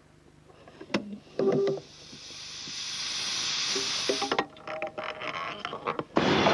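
A click and a short knock, then a hiss that swells for about two seconds and breaks up into crackling clicks; a loud rushing noise comes in near the end.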